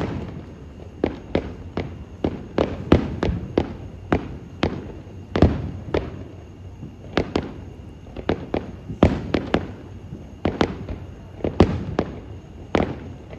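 Aerial firework shells bursting in a rapid, irregular string of sharp bangs, several in quick clusters, with a low rumble between them.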